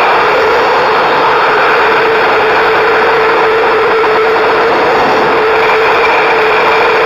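Loud, steady rush of wind over a harness-mounted camera's microphone in paraglider flight, with a constant hum running through it.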